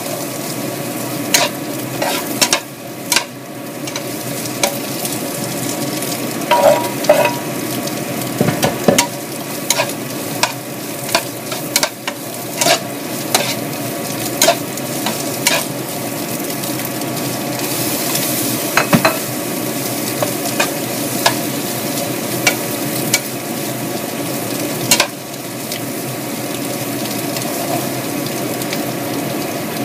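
Vegetables sizzling in a frying pan as they are stir-fried, with a spatula clacking and scraping against the pan many times at an uneven pace.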